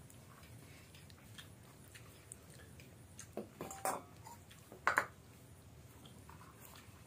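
Someone eating rice by hand from a steel bowl: quiet chewing and mouth sounds, with fingers mixing and scraping against the steel bowl, loudest in a few sharp clinks and scrapes about three and a half and five seconds in.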